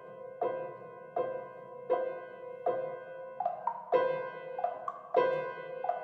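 Contemporary chamber music for saxophone, electric guitar, percussion and piano: a chord struck sharply about every three quarters of a second, each one ringing down before the next. From about three and a half seconds in, the strikes come closer together and a second pitch alternates with the first.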